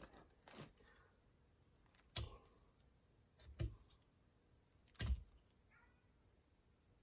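Quiet handling noises: four or five scattered clicks and light knocks, several seconds apart, from working quick-setting plastic repair filler onto a steering wheel.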